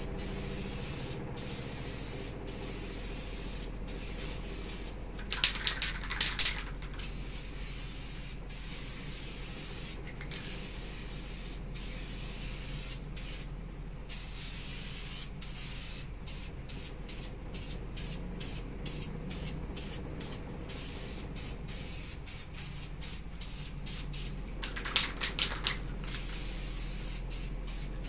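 Diton Premium aerosol spray can hissing as primer grey paint is sprayed on a scooter body panel, in bursts with many short breaks between passes. There are two brief, louder clattering stretches, about five seconds in and near the end.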